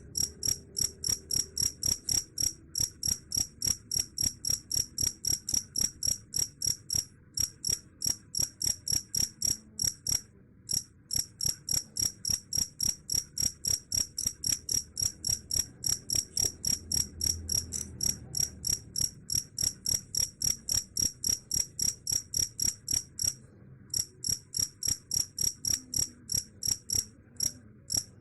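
Cricket chirping in a steady, even rhythm of about three short, high-pitched chirps a second, broken by a few brief pauses.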